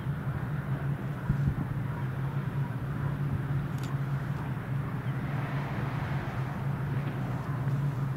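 Diesel multiple unit SA133-022 approaching the station: a steady low engine drone, with rail and engine noise growing from about five seconds in.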